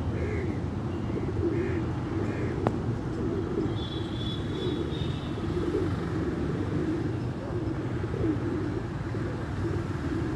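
Rock pigeons cooing over and over in low, wavering notes above a steady low rumble. A few short higher chirps come in the first couple of seconds, a thin whistle about four seconds in, and a single sharp click just before three seconds.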